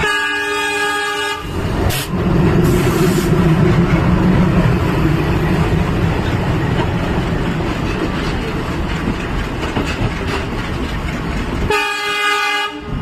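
WDP4D diesel-electric locomotive sounding its multi-tone horn for about a second and a half, then running with a steady low rumble and wheel-on-rail noise, before a second horn blast near the end.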